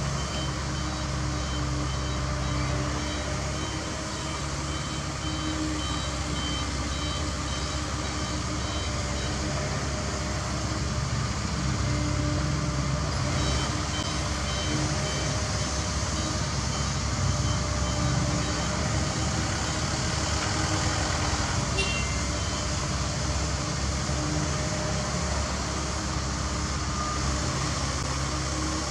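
Diesel engines of a CAT 305.5E2 mini excavator and a dump truck running steadily, with a reversing alarm beeping in a regular series through the first half.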